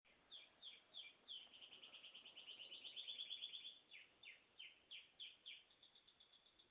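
Canary singing: a string of quick high down-slurred notes, about three a second, runs into a fast trill, then more slurred notes and another rapid trill near the end.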